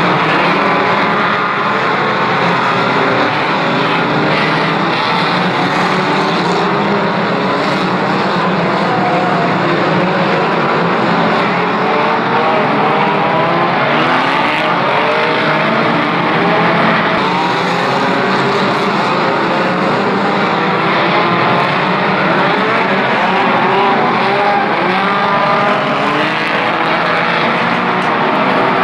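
Several banger race car engines revving hard together, their overlapping pitches rising and falling as the cars race round an oval track.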